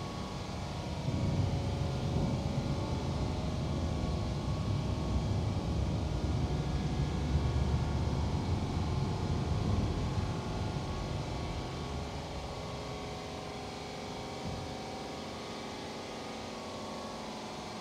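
Machinery of a CNC stone-cutting bridge saw running, a low rumble with a steady hum. It grows louder about a second in and eases off to a quieter hum after about ten seconds.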